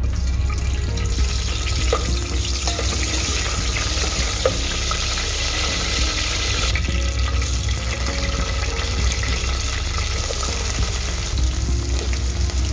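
Curry leaves frying in hot oil in a steel pot: a steady sizzle, with a few light taps of a spoon against the pot.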